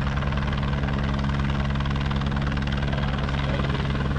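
Medical airlift helicopter running steadily: a steady low hum under a rapid, even beat of the rotor blades.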